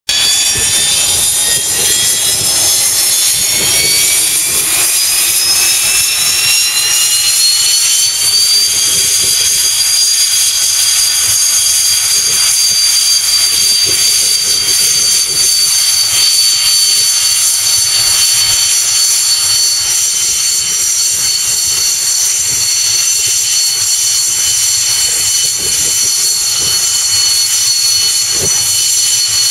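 MiG-21 LanceR jet engine spooling up, its high whine rising in pitch over about the first eight seconds, then running steadily at a constant pitch.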